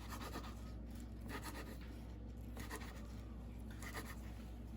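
Soft scraping of a serving utensil against a plate, four light strokes about a second apart, over a low steady hum.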